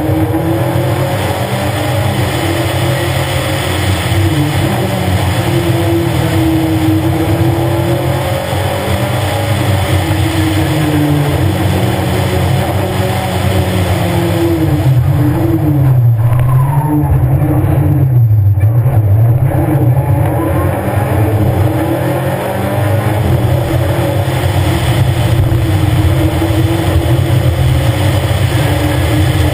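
Škoda 130 LR rally car's rear-mounted four-cylinder engine driven hard, its revs rising and falling through the gears. About halfway through the revs drop twice and climb again as the car slows and accelerates away.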